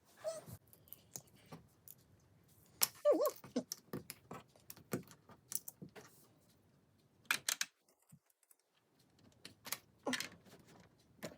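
Plastic LEGO bricks clicking and rattling in irregular clicks as pieces are handled and snapped together. A short wavering voice-like sound comes about three seconds in.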